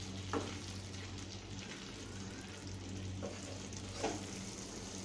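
Brinjal and potato gravy sizzling and simmering in a non-stick pan, over a steady low hum. A spatula stirs it at the start, and there are a few short clicks, about half a second, three seconds and four seconds in.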